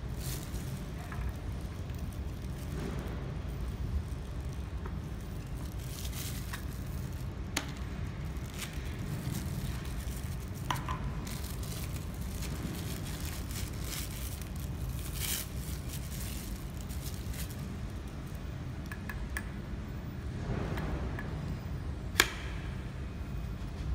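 Thin plastic packaging crinkling and rustling as small microscope parts are unwrapped and handled, with scattered light clicks and one sharp click about 22 seconds in as an eyepiece is fitted into the microscope head. A steady low rumble lies underneath.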